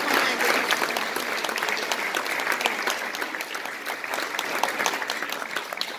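Audience applauding, dense clapping that gradually thins out and grows quieter.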